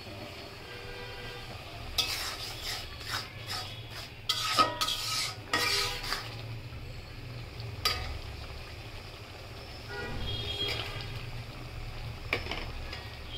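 Metal spatula stirring thick gravy in a wok, scraping and clinking against the pan, with a cluster of sharp knocks a couple of seconds in and a few more scattered clinks later.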